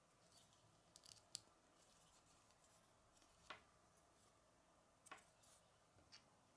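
Faint clicks of small plastic Lego pieces being handled and pressed together, several short, sharp ticks spread over a few seconds.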